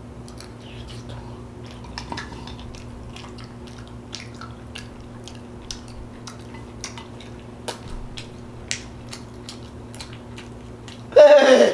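Close-up chewing and mouth smacking, with small wet clicks scattered throughout, from someone eating a spoonful of canned chili. Near the end comes a short, loud vocal sound that falls in pitch.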